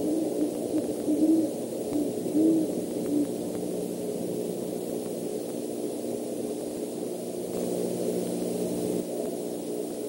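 An owl hooting off in the night, a few short low hoots in the first three seconds, over a steady hum and hiss from the nest microphone.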